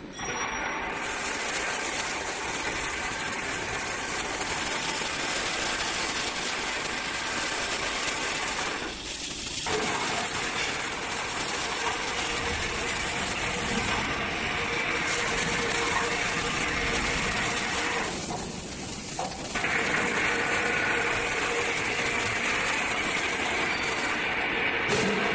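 Plastic pipe belling machine and its production-line machinery running: a steady mechanical noise with a hiss and a faint steady hum. It eases off briefly twice, about nine seconds in and again near nineteen seconds.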